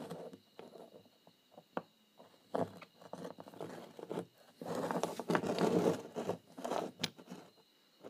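Cast aluminium ingots handled on a wooden tabletop: sliding, scraping and knocking on the wood and against each other, with a few sharp clicks. The longest stretch of scraping comes about five seconds in.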